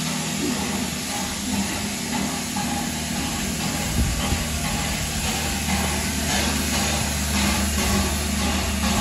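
Steam locomotive standing at the head of its train, hissing steam steadily over a low steady hum, with a few faint clicks in the second half.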